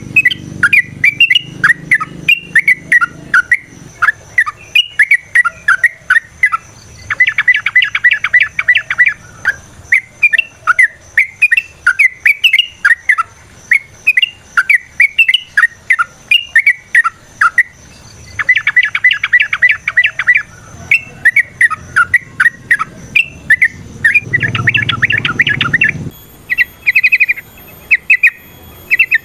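Yellow-vented bulbul (trucukan) singing hard: quick bubbly phrases of short rising and falling notes, broken three times by a rapid rattling trill, the long excited 'ropel' song of a bird in fighting mood.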